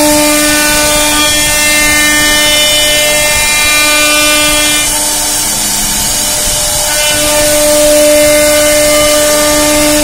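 CNC router spindle running at speed as its bit carves circular grooves into a wooden panel: a steady whine with several overtones over the hiss of the cut. The whine's overtones thin out briefly around the middle, then return.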